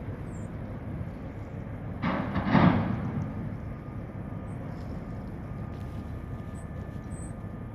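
Steady low outdoor rumble, with a loud rushing burst lasting about a second, about two seconds in.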